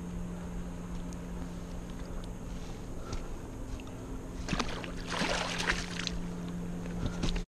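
A hooked catfish thrashing and splashing in shallow water at the shore as it is landed, with a burst of splashing about four and a half seconds in that lasts over a second, over a steady low hum.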